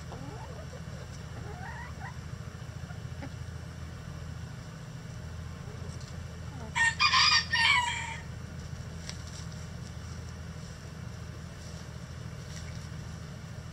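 A rooster crows once, about halfway through, a loud cock-a-doodle-doo lasting about a second and a half. Hens make a few soft short calls in the first few seconds, over a steady low hum.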